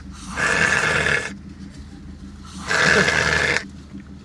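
A man snoring heavily in deep sleep: two long snores, each about a second, roughly two and a half seconds apart.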